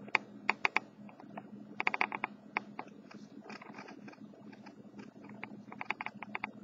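Irregular sharp clicks and taps, some coming in short quick clusters, over a low steady hum.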